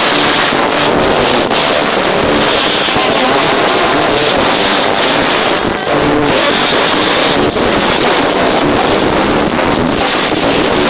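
Loud live church praise music with a congregation singing and tambourines shaking, so loud and dense that it overloads the recording into a steady distorted wash.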